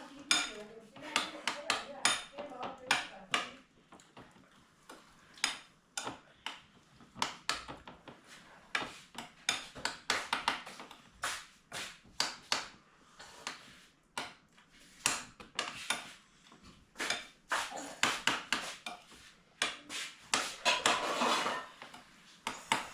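Cutlery clinking and scraping against plates and bowls as people eat, in a long run of irregular sharp clicks, with low voices here and there.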